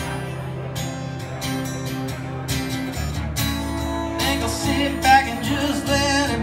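Live country music: a strummed acoustic guitar with a pedal steel guitar sustaining and sliding over it. A man's voice sings from about four seconds in.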